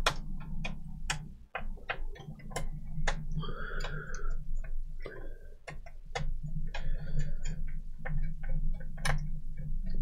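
Small screwdriver turning a stubborn screw in the plastic base of a Dell D620 laptop: a run of irregular light clicks and ticks, with two short squeaky scrapes. The screw is being a pain, its threads thought to be stripped.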